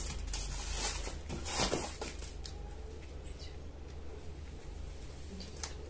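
Paper packing rustling and crinkling as sandals are lifted out of a cardboard shoebox, loudest in the first two seconds, followed by a few faint taps of handling. A steady low hum runs underneath.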